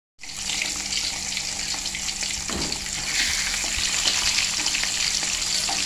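Whole pindang fish frying in hot oil in a metal wok: a steady sizzle that grows louder about three seconds in, with a spatula knocking once as it turns the fish.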